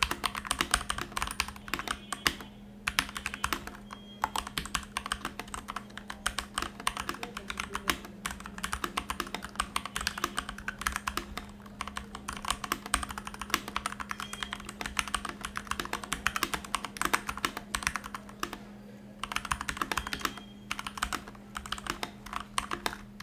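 Fast, continuous typing on a Keychron K4 V2 mechanical keyboard with Gateron Brown switches, with a few brief pauses. It has a thocky keystroke that the reviewer finds a little hollow and puts down to empty space inside the case. A steady low hum runs underneath.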